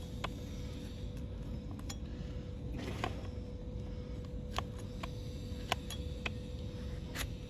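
Hoof-trimming tools clicking and snipping against a donkey's hoof, about seven sharp clicks at irregular intervals over a steady low hum.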